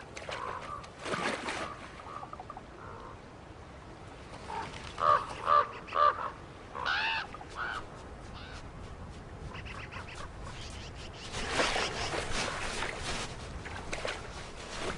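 Birds calling: three short, evenly spaced calls about five seconds in, then another call a second later, over low background noise that swells for a couple of seconds near the end.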